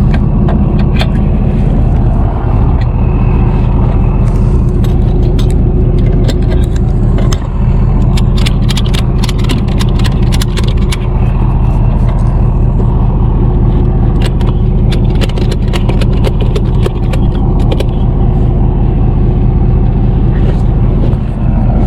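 Tow truck's engine running steadily with heavy road or traffic noise, over irregular light rattling clicks that come thickest in the middle.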